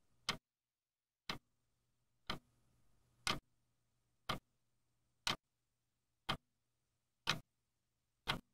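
Clock ticking steadily, one tick a second, with a faint hum between the ticks.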